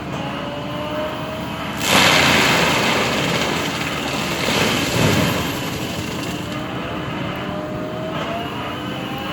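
Bobcat skid steer with a forestry mulcher head running steadily, with slowly rising whines. About two seconds in, a loud grinding surge lasting about three seconds as the mulcher bites into wood, then it settles back to steady running.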